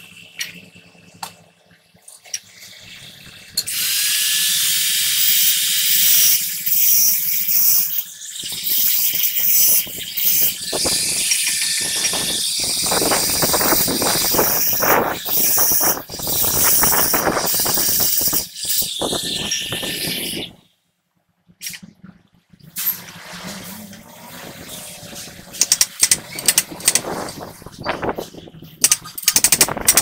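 Angle grinder disc grinding against the steel wheel hub of a truck axle, running steadily with a thin whine for about seventeen seconds before it stops. After a short silence come scattered small metal sounds and, near the end, a quick run of sharp knocks.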